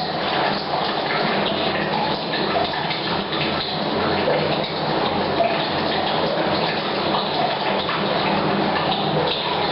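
Rain pattering on a roof mixed with a mains-water pipe pouring into a tank, a steady dense rush of drops and splashing that echoes in a bathroom.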